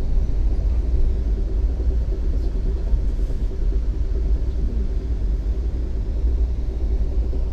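Steady low rumble of a moving passenger train, with a faint steady hum above it.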